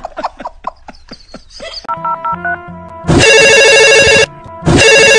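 A man laughing in short bursts, then a brief tune, then a loud phone ringtone that rings twice, each ring just over a second long with a short gap between. The ringing is an incoming call.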